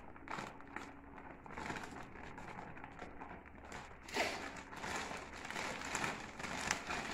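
Thin plastic bag of maida crinkling and rustling as flour is tipped and shaken out of it, with many small crackles and a louder rustle about four seconds in.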